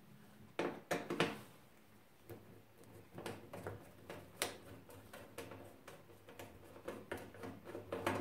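Small screwdriver turning out a screw from the sheet-metal top cover of a pellet boiler: irregular light metallic clicks and ticks, a few louder ones about a second in.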